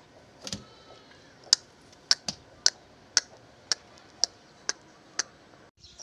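An Aseel rooster's beak pecking on a hard plastic surface: a run of about ten sharp clicks, roughly two a second.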